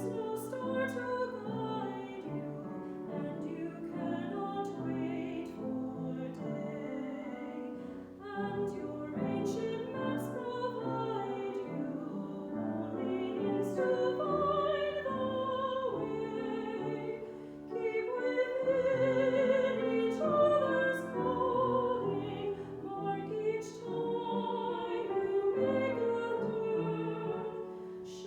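Church choir singing a slow sacred anthem with instrumental accompaniment, the voices held in long phrases with vibrato.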